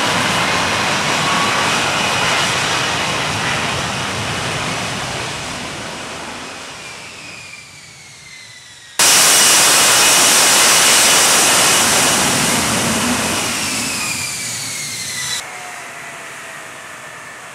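F-35B Lightning II jet engine noise: a loud rush with a high whine that falls in pitch as it fades away over several seconds. About nine seconds in it cuts suddenly to another loud stretch that fades with a falling whine the same way, then drops abruptly to a quieter one near the end.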